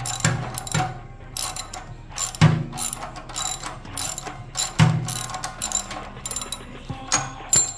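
Socket ratchet clicking in short, irregular runs with a few heavier knocks, working the old spark plug out of a small generator engine.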